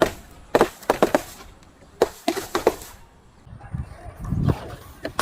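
Objects being crushed, giving sharp cracks and crunches in quick clusters, with a lower rumbling crunch near the end.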